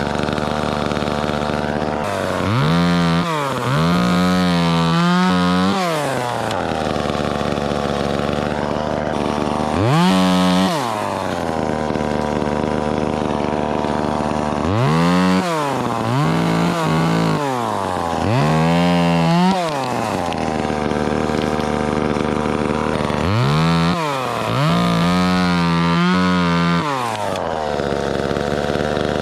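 Two-stroke chainsaw revving up and dropping back to idle again and again, each burst rising steeply to a high, steady pitch held for a second or two before falling away.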